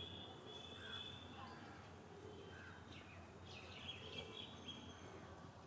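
Faint bird chirps: clusters of short, high calls near the start and again past the middle, over a steady low background hum.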